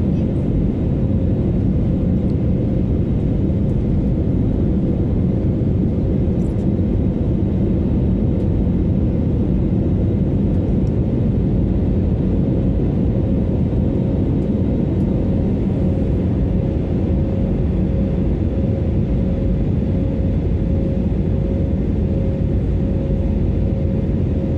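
Airliner cabin noise during the climb after takeoff: a steady rumble of engines and airflow with a constant hum on top.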